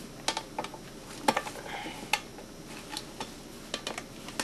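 Paint-can opener prying at the lid of a metal can: a run of irregular sharp metallic clicks and taps, the loudest about a second in.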